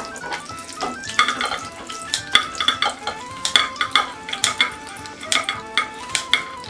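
Kitchen scissors snipping through a crisp toasted Reuben sandwich pressed in a waffle iron: an irregular run of sharp crunchy clicks, over soft background music.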